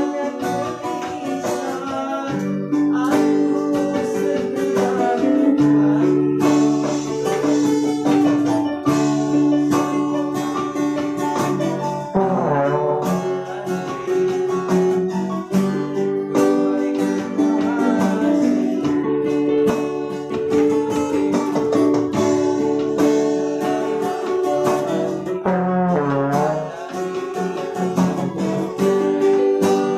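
A small dangdut band playing unamplified: trombone and acoustic guitar over electronic keyboards, carrying a melody with a steady strummed pulse.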